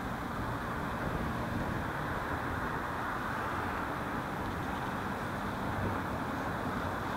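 Steady rumble of city road traffic.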